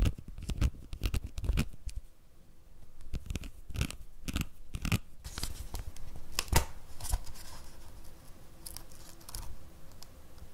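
Hands handling a plastic Starbucks cold cup with its domed lid and straw: irregular sharp plastic clicks, taps and crinkles, as the lid is worked and pulled off near the end. Close-miked stereo recording for ASMR.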